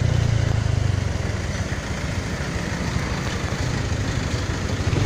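Motorbike engine running while riding in traffic, with road and wind noise: a steady low drone, strongest in the first second, then a rougher, even rumble.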